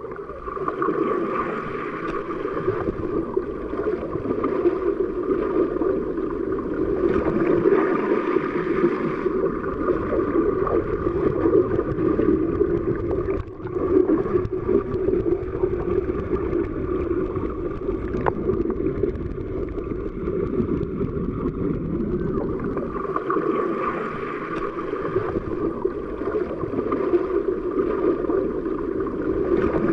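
Underwater ambience sound effect: a steady, muffled rush of water with gurgling. It starts abruptly and dips briefly about halfway through.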